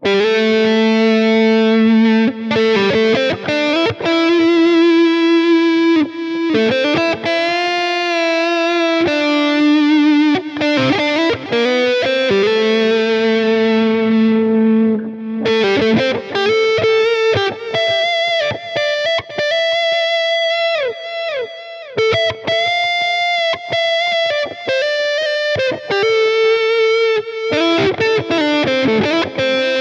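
Fender Telecaster electric guitar playing a solo lead line alone through a Line 6 POD Go custom lead patch. Long held notes with vibrato alternate with quick runs of short notes, and a downward slide comes about two thirds of the way through.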